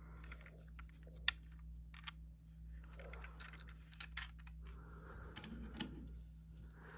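Light plastic clicks and taps of a Transformers Studio Series 86 Ratchet action figure and its blasters being handled, with one sharper click about a second in.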